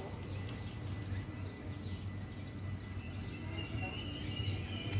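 Birds chirping over a steady low hum. In the last second or so a thin high-pitched squeal sets in and grows: the rails singing and the wheels squealing as a GTW-E electric train approaches the crossing.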